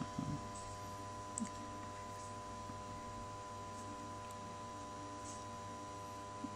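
A few soft clicks from the Nokia 8110 4G's keypad buttons being pressed, over a steady electrical hum.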